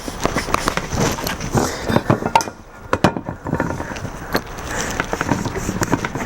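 Knife slicing and scraping into a cured ham leg held in a ham holder: irregular scraping strokes and small clicks, with a quieter pause about halfway through.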